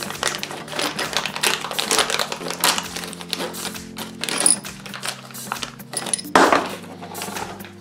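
Clear plastic bag crinkling as it is handled and opened, with the metal wall-fixing screws inside clicking and rattling against each other and the plastic, in quick irregular clicks and a louder rustle about six seconds in.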